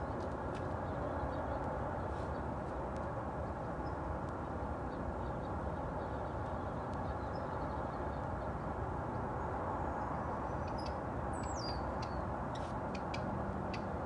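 Steady outdoor background hum with faint bird chirps, and near the end a single high call that glides downward.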